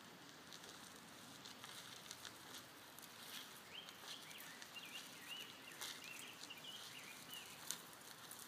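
Faint crunching and ticking of a Bernese mountain dog's paws and wheelchair cart wheels on a gravel road as the dog comes closer. A bird chirps a quick run of high notes midway.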